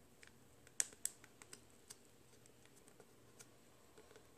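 Origami paper being folded and creased by hand: scattered faint crisp clicks and crackles of the paper, the two loudest close together about a second in.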